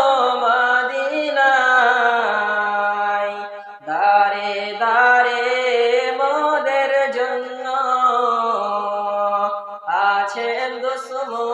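Solo male voice singing a Bengali Islamic gojol unaccompanied, in long held, ornamented phrases with brief breaths about 4 and 10 seconds in.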